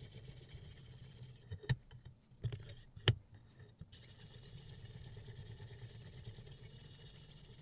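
Two sharp clicks about a second and a half apart, with lighter knocks between them, as the knife clamp of a Sytools Beast sharpening system is turned over on its pivot; a steady low hum runs underneath.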